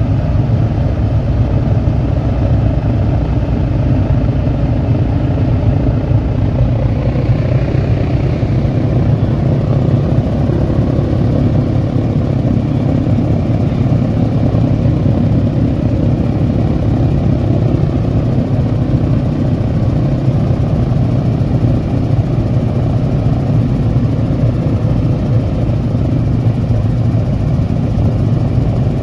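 The four Wright R-3350 radial engines of a B-29 Superfortress idling together in a steady, loud, deep drone.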